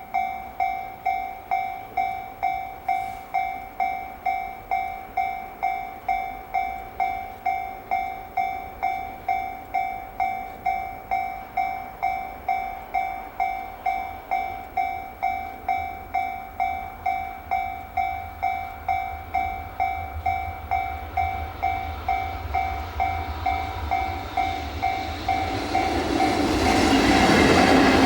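Japanese level-crossing alarm ringing steadily, about two dings a second. In the last few seconds the freight train hauled by the EF65 electric locomotive comes up to the crossing, its rumble growing loud.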